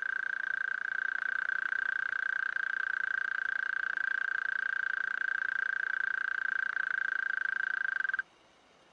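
Mole cricket singing: one continuous, steady high-pitched trill, made by rubbing its forewings together, that stops abruptly about eight seconds in.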